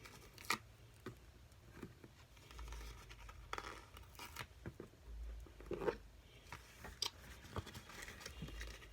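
Faint scattered rustles and small clicks of heart stickers being peeled from a sheet and pressed on by hand.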